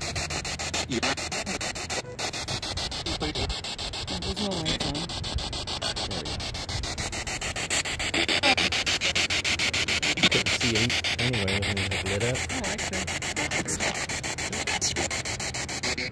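Spirit box (radio-sweep ghost box) scanning through radio stations: a steady hiss of static chopped into rapid, even pulses, with faint broken fragments of radio voices.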